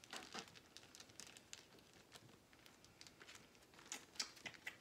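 Faint, scattered snips of scissors cutting the stoma opening in a one-piece flexible ostomy pouch's skin barrier, with a few louder snips near the end.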